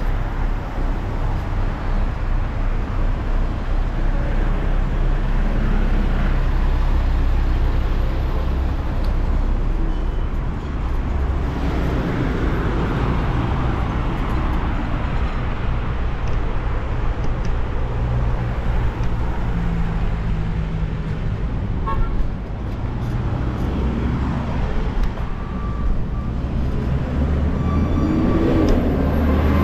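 Steady road traffic noise from passing motor vehicles, under a continuous low rumble of wind on the microphone from riding.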